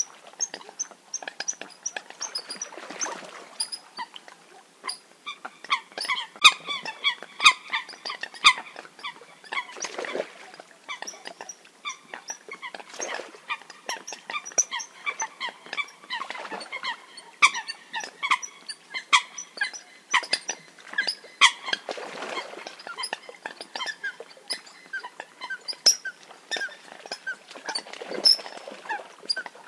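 Eurasian coots giving their fight calls: a dense, irregular run of short, sharp calls, several birds overlapping, with a soft rushing noise swelling every few seconds.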